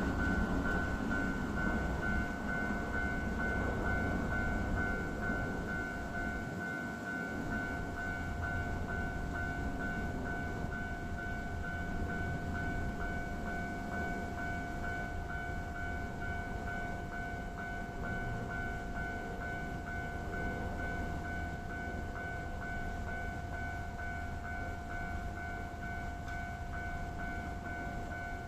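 Japanese railway level-crossing warning bell ringing on and on in a steady repeating electronic clang, the crossing held shut while trains keep coming. Under it, the low rumble of a passing train fades away over the first several seconds.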